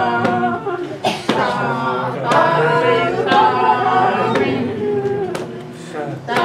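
A group of voices singing a song together, with a sharp tap or beat roughly once a second.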